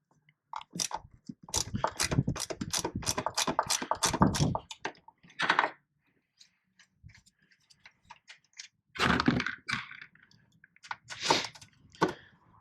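Quick run of clicks and knocks, then a few separate clusters of knocks: hand tools and loose hardware being worked and handled while the strut-tower fasteners are loosened to fit a strut bar.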